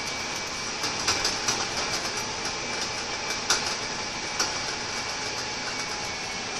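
A Scania K230UB bus's rear-mounted diesel engine running as the bus travels, heard from inside the saloon as a steady drone. A scatter of sharp clicks and rattles from the body and fittings comes through, the loudest about three and a half seconds in.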